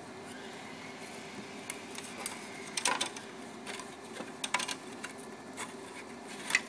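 Cut G10 fiberglass parts being handled and pried loose from the sheet by hand: scattered light clicks, taps and scrapes over a faint steady background hum.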